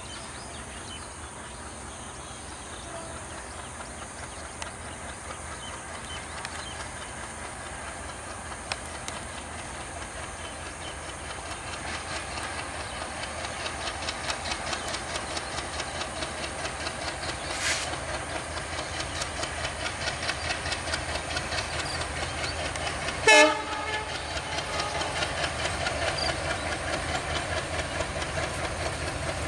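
Diesel-hauled passenger train approaching, its wheels clicking over the rail joints in a steady rhythm that grows louder as it nears. About three quarters of the way in the locomotive sounds one short horn blast, the loudest sound; a brief high-pitched sound comes a little past halfway.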